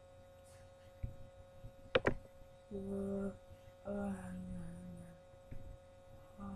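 A boy's voice making two drawn-out wordless sounds, the second slowly sinking in pitch, over a steady electrical hum. A soft knock about a second in and a sharp knock about two seconds in.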